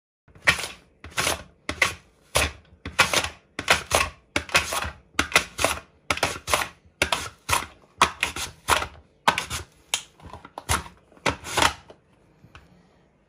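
A run of sharp chopping blows at an uneven pace of about two a second, stopping shortly before the end.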